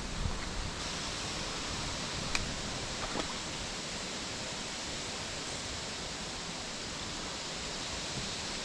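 Steady rush of a small trout stream's running water, with a faint click about two seconds in.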